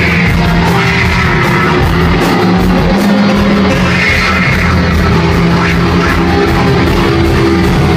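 Heavy rock band playing live and loud, with distorted guitars over low sustained bass notes and a steady drum beat.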